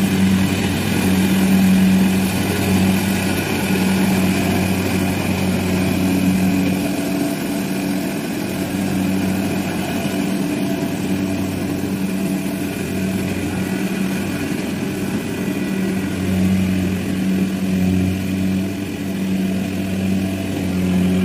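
Kubota combine harvester's diesel engine running steadily under load as it cuts and threshes lodged rice, a continuous hum with slight rises and falls.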